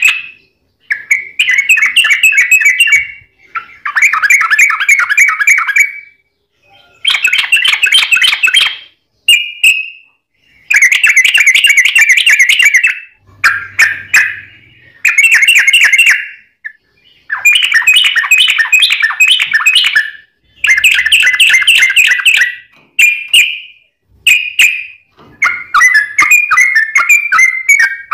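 Sooty-headed bulbul (trucuk) singing in rapid, dense warbled phrases of one to three seconds each, with only short pauses between them. The song is delivered in a fast, tight style and includes variations borrowed from the straw-headed bulbul (cucak rowo).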